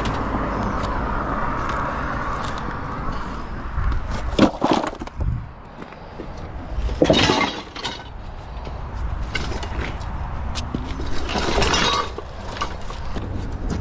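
Scrap metal pulled from a canal by magnet fishing clattering and crashing as it is dumped and loaded, with three loud crashes.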